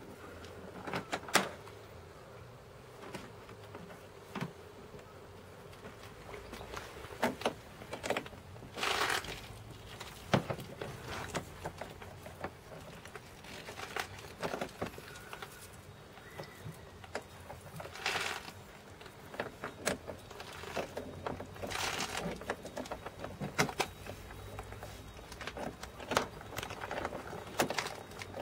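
Scattered plastic clicks, knocks and short scrapes as a Rug Doctor carpet cleaning machine is handled and its hoses are pushed into their ports.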